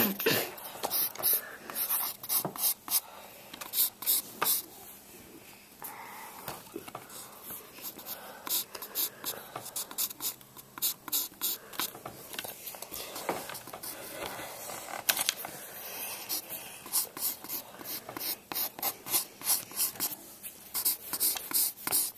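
Pencil scratching on paper in quick repeated strokes, heard close up, coming in runs with short pauses between them.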